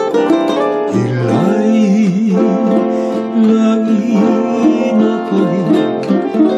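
A man sings a Hawaiian song with a wavering vibrato, accompanying himself on a strummed ukulele.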